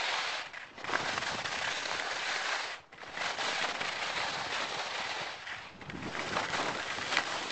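Skis sliding and scraping over packed snow at speed, mixed with wind rushing over the camera microphone: a steady hiss with a few crackles, breaking off briefly about a second in and again near three seconds.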